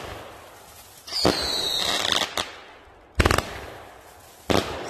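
Dominator 'Scream and Shout' 500-gram, 25-shot fireworks cake firing three loud shots: about a second in, about three seconds in, and near the end. The first shot is followed by a whistle that falls in pitch. The echo dies away between the shots.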